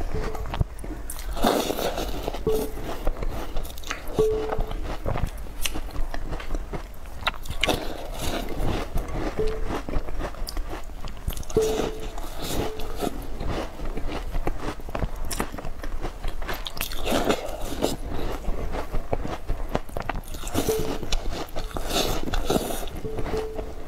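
Biting and chewing of Chinese peach crisp (taosu) shortbread cookies soaked in milk: a steady run of soft crumbly bites and mouth sounds.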